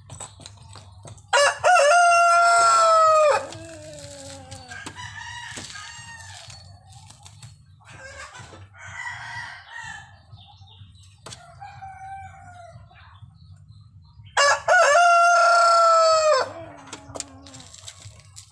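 Rhode Island Red rooster crowing loudly twice, about thirteen seconds apart, each crow a long held call that drops away at the end. Softer chicken calls come in between.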